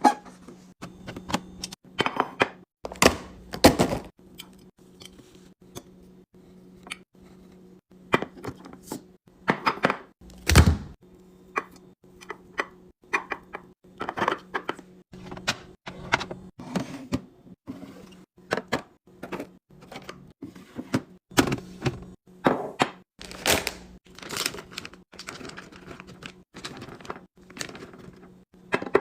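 Containers and food items being handled and set down while a refrigerator is cleaned and restocked: irregular clicks, taps and knocks, with louder thuds a few seconds in and near the middle, over a steady low hum.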